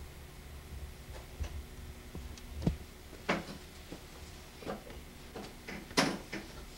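A scattering of small knocks and clicks over a low steady hum, the sharpest near the end.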